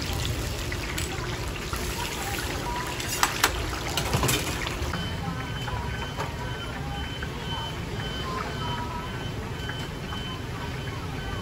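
Hot oil sizzling in a large wok as oyster fritters deep-fry, with a few sharp metal clinks of ladles about three to four seconds in. From about halfway a faint repeating electronic beep runs underneath.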